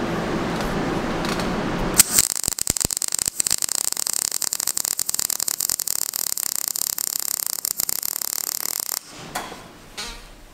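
MIG welding arc on square steel tubing, a dense, fast crackle that starts abruptly about two seconds in, runs for about seven seconds and cuts off as the trigger is released. Before it there is a steady rushing noise.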